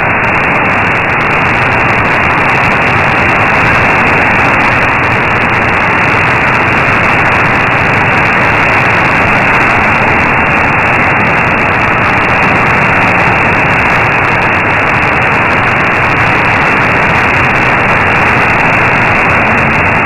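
Steady shortwave static hiss from an AM receiver tuned to 15476 kHz: the station's signal is weak and buried in noise.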